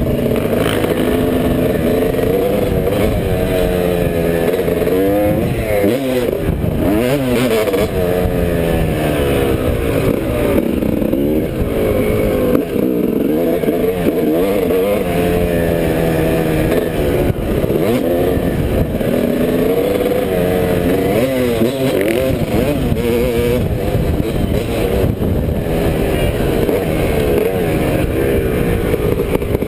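Motocross dirt bike engine, heard from the rider's helmet camera, revving up and down over and over as the rider opens and closes the throttle and shifts gears around the track.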